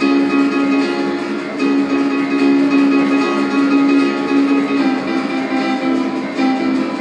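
Recorded music played through a hi-fi loudspeaker system in a room: a plucked-string piece, guitar-like, with ringing notes that change every second or two.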